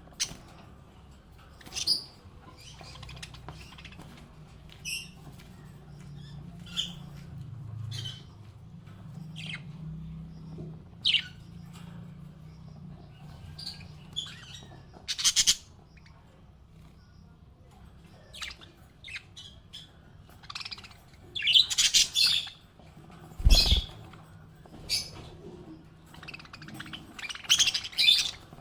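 Small pet parrots giving scattered short chirps and squawks, with louder bursts of chatter about three quarters of the way in and near the end. A single low thump sounds about two thirds of the way through.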